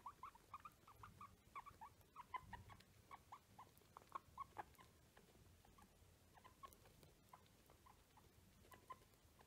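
Guinea pig giving quick, short squeaks, several a second, thinning out after about five seconds. The owners take him to be angry at being kept from another room.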